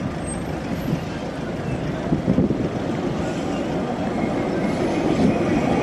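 Blackpool's Western Train illuminated heritage electric tram approaching along street track, its rumble growing steadily louder as it nears.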